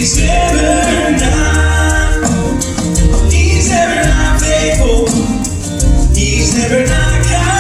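A live acoustic band plays a song, with singing over bass and shaker-style percussion.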